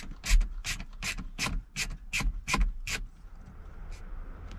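Repeated rasping rub strokes, evenly spaced at about two and a half a second, which stop about three seconds in.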